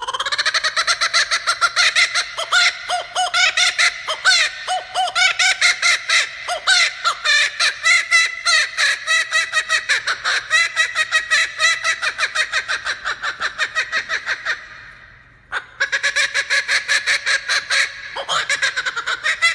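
Male laughing kookaburra giving its full laughing call: a loud, rapid run of repeated hooting notes, several a second, that breaks off briefly about fifteen seconds in and then starts up again.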